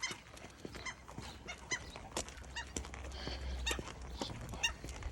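Gulls calling: a series of short, sharp, repeated calls, about two a second.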